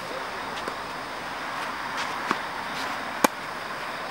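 Tennis rally: a tennis ball struck by racket strings gives two sharp pocks, one a little over two seconds in and a louder one about three seconds in, over a steady background hiss.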